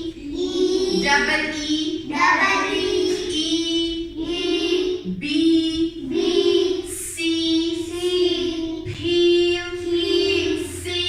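Children's voices singing a sing-song chant, short phrases on a steady pitch following one another about once a second, as in a class reciting a lesson.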